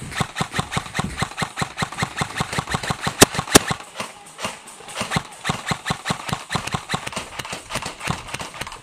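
Airsoft gunfire: a steady run of sharp clicks, about five a second, with two louder, sharper cracks a little past three seconds in.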